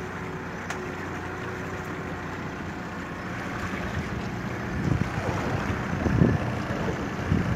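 A boat engine running steadily with a low hum. From about halfway through, wind buffets the microphone in gusts.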